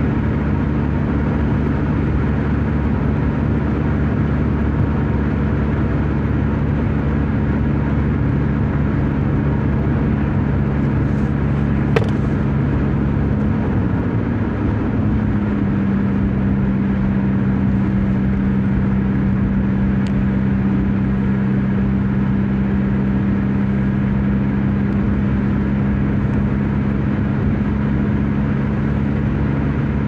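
Car driving at highway speed, heard from inside the cabin: a steady engine drone with road and tyre noise. About halfway through, the engine tone dips slightly and settles lower, and there is a single sharp click a little before that.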